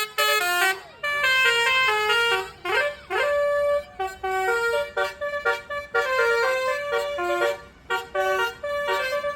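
Bus telolet horn, a multi-tone musical horn driven by a DAV module, playing a quick viral tune of short, stepped notes. It pauses briefly between phrases, with a couple of swooping notes about three seconds in.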